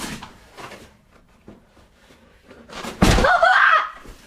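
A door slamming shut about three seconds in, with a wavering high-pitched sound that bends up and down for under a second right after the impact.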